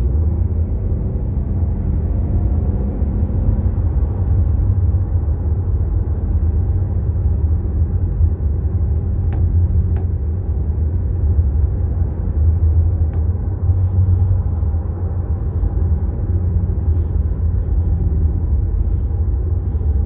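Interior noise of an Infiniti sedan cruising at speed: a steady low rumble of engine and tyres on the road, heard inside the cabin.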